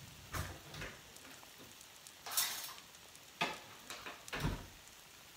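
Omelet sizzling faintly in a hot frying pan with the burner off, the sizzle calming down. A few short knocks and clatters break in, the loudest about two and a half seconds in.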